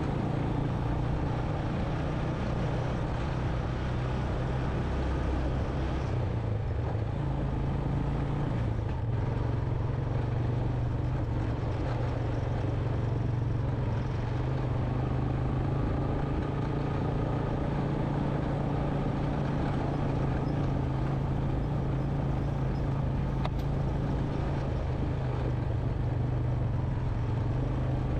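Honda Recon 250 ATV's single-cylinder four-stroke engine running steadily under way on a rough dirt trail, its low engine note holding even throughout.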